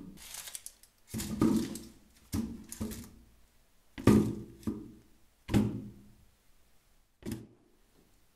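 Potatoes and carrots dropped one at a time into a plastic bucket: a series of hollow thunks about a second apart, with a shorter, sharper knock near the end.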